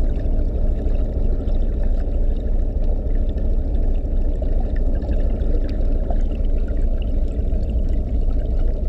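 Steady, muffled rush and churn of water heard underwater, from a camera submerged in a boat's live bait tank full of fusiliers.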